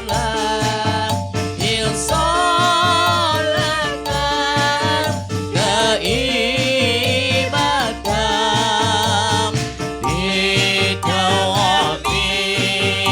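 Live Javanese song sung with strong vibrato over a low, steady, evenly repeating beat from the accompanying instruments.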